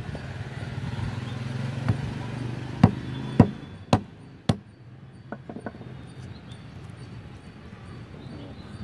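A stone knocking on a dried almond (badam) in its husk to crack it open: five sharp knocks about half a second apart, then a few lighter taps. A low steady hum runs underneath in the first few seconds.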